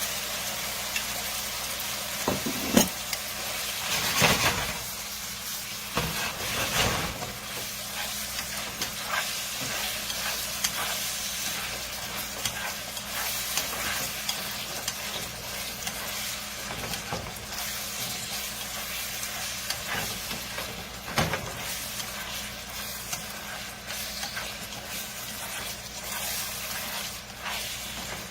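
Diced soft tofu and sauce sizzling steadily in a hot pan as they are stirred. A utensil knocks and scrapes against the pan a few times, loudest about four seconds in.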